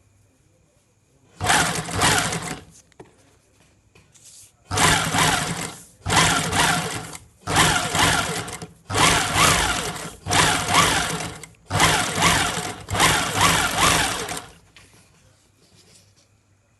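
Juki sewing machine stitching in stop-start runs: one short run, then a string of runs about a second long each with brief pauses between, the last one longer.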